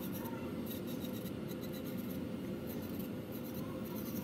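Avaliko electric nail drill running with a diamond callus bit, grinding callus at the side of a fingernail: a steady motor whine under an uneven scratchy rasp.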